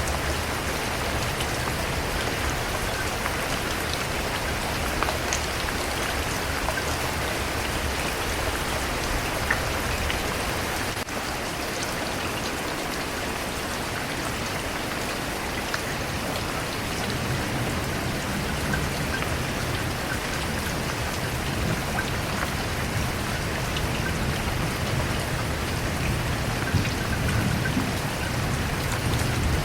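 Steady, heavy rain falling on a surface, an even hiss with scattered individual drop ticks. A low rumble comes in under it during the second half.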